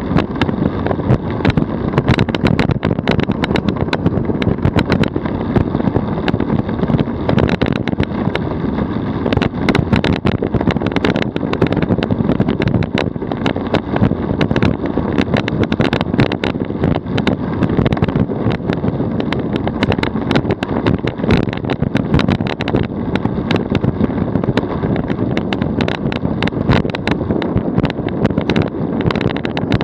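DF velomobile rolling at about 44 km/h on asphalt: a steady rumble of tyre and road noise through the shell, thick with rattling clicks, with some wind.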